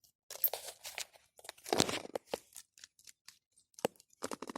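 Butter slime being kneaded and squeezed by hand: sticky, crackly clicking in two bursts, a longer one through the first half and a shorter one near the end.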